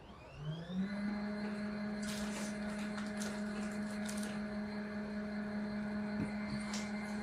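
Small portable washing machine's motor spinning up during the first second, then running with a steady hum, with a few light clicks during the run.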